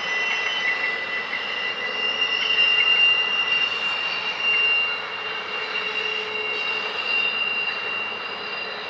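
Canadian Pacific GE AC4400CW diesel-electric locomotive going past at work, its engine running steadily with a high-pitched whine on top. It is loudest about three seconds in and slowly fades as the locomotive draws away.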